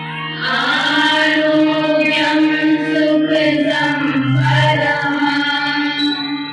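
A devotional mantra chanted by voices over a steady, sustained drone.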